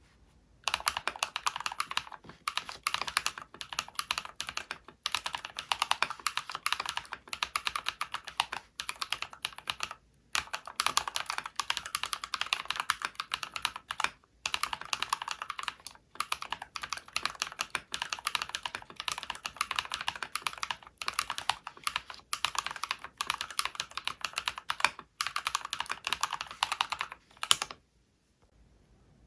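Typing on a mechanical keyboard with Holy Panda tactile switches and Cherry profile keycaps: a dense, continuous clatter of keystrokes with a few brief pauses, stopping shortly before the end.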